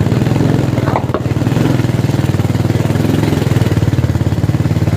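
Small motorcycle engine running steadily at low speed, its exhaust giving a fast, even pulse.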